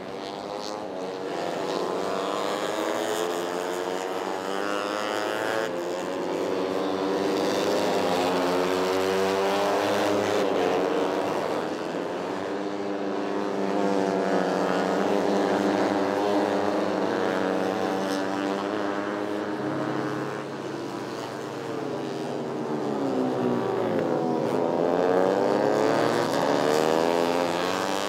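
150 cc four-stroke fuel-injected underbone race motorcycles at full throttle. The engines rev up and drop back again and again as the riders shift gears, and near the end a second engine's pitch crosses the first as bikes pass.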